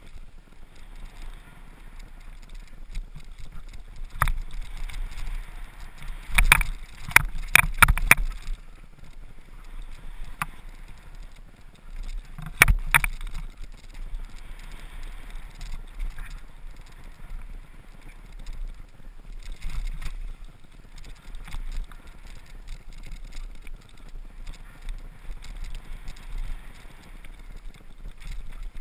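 Trek Remedy 8 full-suspension mountain bike descending fast on a rough dirt and loose-gravel trail: a steady rush of tyre and wind noise, broken by sharp clattering knocks from the bike over rough ground. There is a quick run of knocks about a quarter of the way in and another burst a little under halfway.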